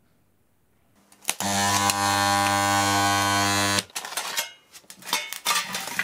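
Microwave-oven-transformer spot welder buzzing loudly and steadily for about two and a half seconds while welding thin metal sheets, then cutting off sharply. A few clicks come just before it starts, and light metal clatter follows.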